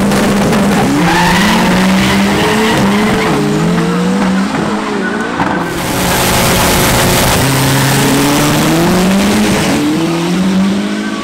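Turbocharged drag-racing car engines at full throttle, very loud, their pitch climbing and then dropping back again at each gear change.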